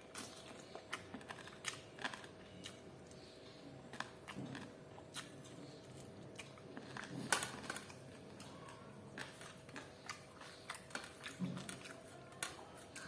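Close-miked eating of fried chicken and rice: chewing and biting with irregular wet mouth clicks and smacks, the loudest about seven seconds in.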